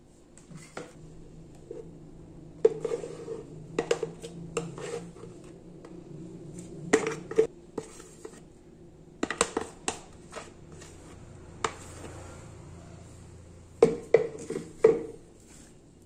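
Irregular knocks and clinks against an aluminium tube cake pan as thick cake batter is poured in from a blender jar and worked with a spatula. The knocks come in small clusters every few seconds, some ringing briefly.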